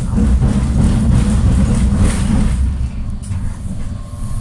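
Loud low rumble with a hiss heard inside a tram car, easing off after about two and a half seconds.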